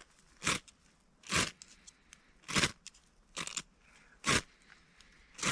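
Ferro rod scraped hard with a steel striker to throw sparks: about six short, sharp scrapes, roughly one a second.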